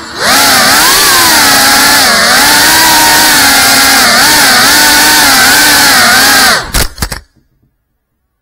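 GEPRC CineLog35 cinewhoop's brushless motors and ducted propellers whining loudly, the pitch rising and falling with throttle. About seven seconds in, a few knocks come as the drone hits a surface, and the motors stop abruptly.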